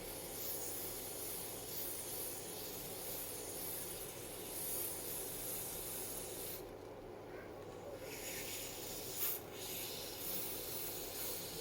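Fingertips pressing and rubbing the glued wig lace down onto the skin: a soft, steady rubbing hiss that stops briefly about seven seconds in.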